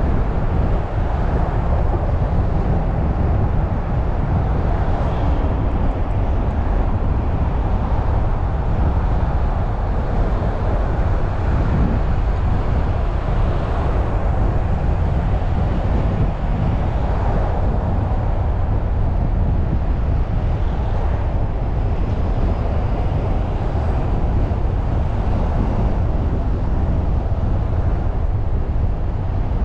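Car driving along a city street: a steady, low rumble of engine and tyre noise with surrounding traffic.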